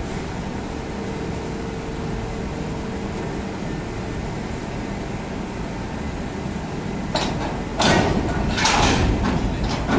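Railway wagon shifter machinery running with a steady hum, then a run of loud metallic clanking and scraping in the last three seconds as the wagon and platform work.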